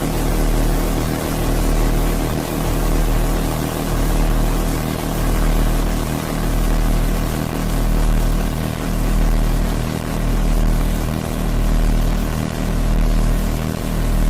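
Dizzy sound effect: a low, droning hum made of layered steady tones. It swells and fades in a regular wobble about every second and a half.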